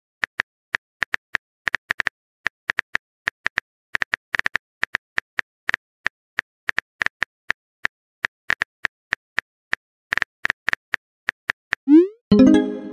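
Phone keyboard typing-click sound effects, short sharp taps at an irregular pace of several a second, as a text message is typed. Near the end a louder short rising pop-like sound effect as the message is sent.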